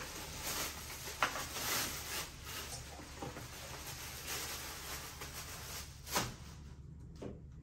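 Thin plastic wrapping crinkling and rustling as it is pulled off a new upright vacuum cleaner, with scattered sharp crackles. A single short knock about six seconds in, then it goes quieter.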